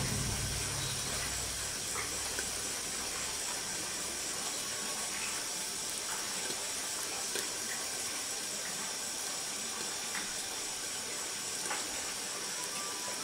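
Open wood fire burning under a lidded pot: a steady hiss with a few faint crackles and pops scattered through it.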